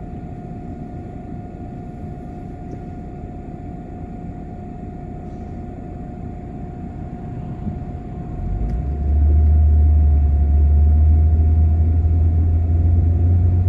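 Road noise of a moving vehicle: a steady hum with a faint constant whine. About two-thirds of the way through, a loud low rumble sets in and holds.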